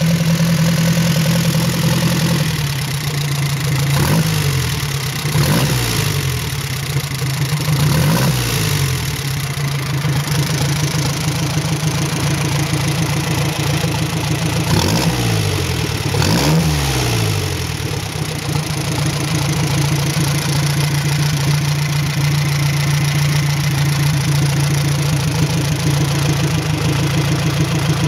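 1928 Henderson Deluxe motorcycle's air-cooled inline four-cylinder engine idling steadily. The throttle is blipped five times in the first half, each rev rising and falling back to idle.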